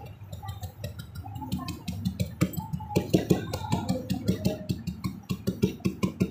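Paintbrush dabbing quickly on paper glued over cardboard: a rapid run of light taps, about five a second, that gets going about a second and a half in.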